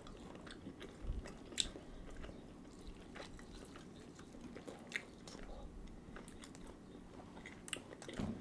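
Someone chewing and biting into garlic parmesan chicken wings close to the microphone: faint wet chewing with scattered sharp mouth clicks and smacks.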